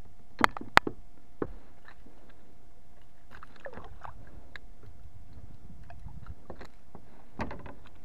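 Handling noises aboard a fishing kayak: a few sharp clicks in the first second and a half, then scattered light knocks and rustles, over a faint steady hum.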